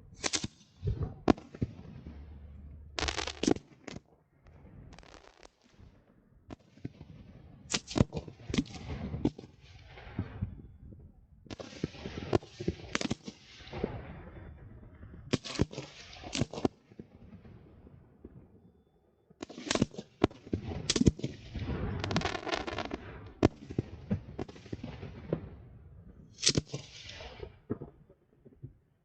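Fireworks display: a rapid, irregular run of sharp bangs from bursting shells, often in quick clusters, with crackling after many of them. There is a denser stretch of crackle about two-thirds of the way through.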